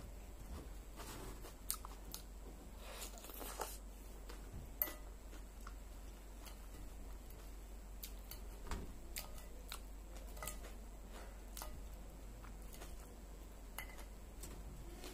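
Chewing and crunching a raw vegetable salad, with scattered short sharp clicks of a fork on the plate now and then.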